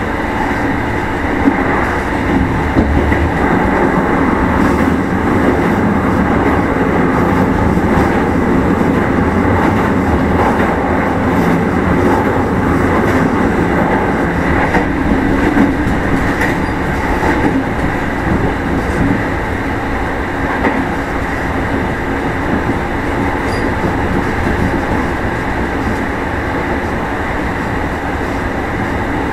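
Running sound inside a Meitetsu 1000 series electric motor car: a steady rumble of motors, gears and wheels on the rails, with wheels clacking over rail joints.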